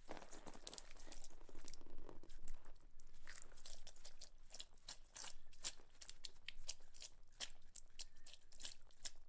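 Blood spurting on a deer carcass: a dense run of irregular wet crackles and squelches.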